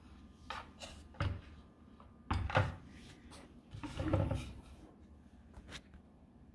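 A round wooden turntable carrying a small toy steam engine is turned by hand in several pushes, giving a handful of wooden knocks and short low rumbles. The two loudest come at about two and a half and four seconds in.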